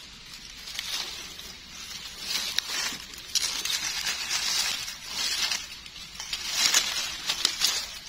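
Dry leaf litter and grass crackling and rustling as gloved hands dig mushrooms out of it, coming in repeated swells about once a second with scattered sharp clicks, loudest near the end.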